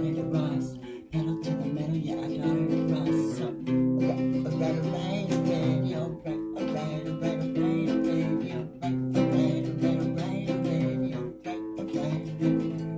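Music: an acoustic guitar being strummed and plucked.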